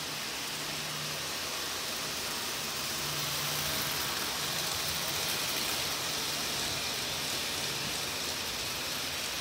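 MPC-era Lionel Blue Comet O-gauge locomotive and passenger cars running on three-rail track: a steady noise of wheels and motor, a little louder midway as the train passes close. There is no steam chuff or whistle: the train's sound board is dead, which the owner thinks shorted out.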